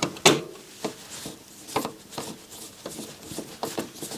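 A few short, irregular clicks and knocks from handling a screw and screwdriver against the metal chassis of a stereo receiver, the loudest about a quarter second in.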